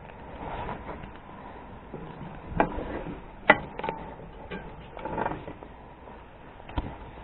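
Rustling and crunching in snow with a few sharp clicks and knocks, as a climbing rope and gear are handled on a snowy roof; the loudest click comes about three and a half seconds in.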